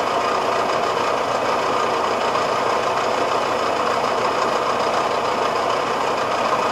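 Farm tractor's diesel engine idling steadily while the tractor stands still with its rotary tiller raised.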